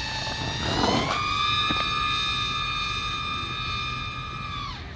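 FPV quadcopter's motors and propellers whining steadily. The pitch steps up about a second in and holds, then drops steeply near the end as the throttle is cut for a skydive-style drop.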